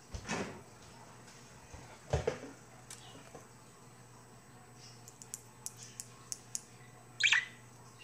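Handling noise: a couple of soft thumps as someone settles in, then a series of light clicks and a short, sharper sound near the end as a white budgie nibbles at a metal ring and necklace chain.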